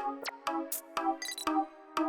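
Electronic intro music: short synth notes with clicks and a quick falling sweep.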